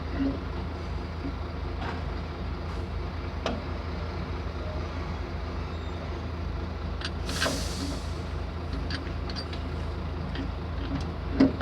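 An engine running steadily at idle, with a few light metallic clicks and a short hiss about seven seconds in.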